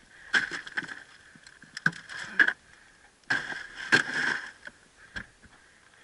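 Bursts of knocks, scrapes and thumps, in four groups, as a large redfish is put into a plastic cooler aboard an aluminum jon boat.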